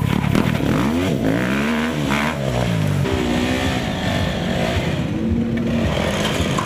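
Enduro dirt-bike engines revving hard, the pitch rising and falling several times over the first three seconds, then a steadier, noisier run.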